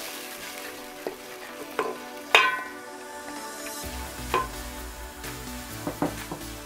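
A wooden spoon stirring tomato puree into sizzling fried onions and vegetables in a stainless steel pot, with a few knocks of the spoon against the pot, the loudest one ringing briefly about two and a half seconds in.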